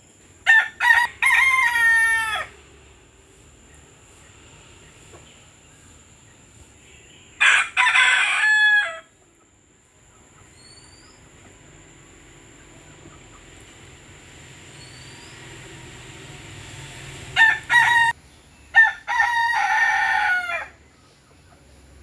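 A rooster crowing three times: near the start, about eight seconds in, and again around eighteen seconds in. Each crow lasts about two seconds and opens with short notes before a longer note that falls away at the end.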